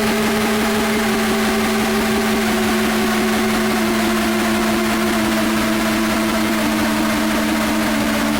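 Sustained creaking drone from a plate: a steady low tone with a second, higher tone slowly sinking in pitch, over a fast fluttering rattle.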